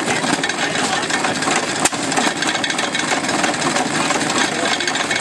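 Small antique stationary engines running as they drive water pumps, mixed with water pouring from several faucets into a galvanized tank. A dense, steady clatter of rapid ticks, with one sharp click about two seconds in.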